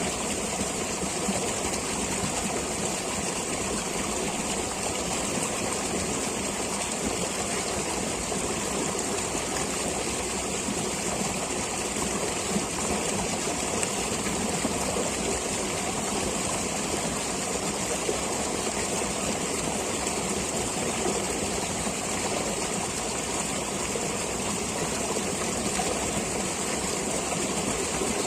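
Flowing stream water rushing and babbling steadily, with no breaks or changes, and a steady high hiss over it.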